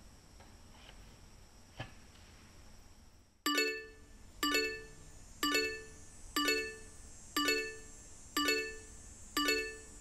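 A timer alarm sounding a bell-like electronic chime about once a second, starting a few seconds in: a Pomodoro timer going off to mark the end of a work interval.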